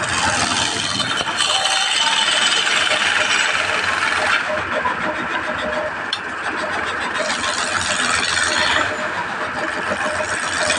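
Wood lathe running while a hand-held chisel cuts into a spinning wooden blank, giving a steady scraping hiss of wood being shaved. The cutting hiss eases off a little before halfway and picks up again later on.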